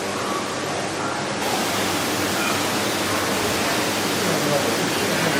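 Steady rushing noise that fills out in the high end about a second and a half in.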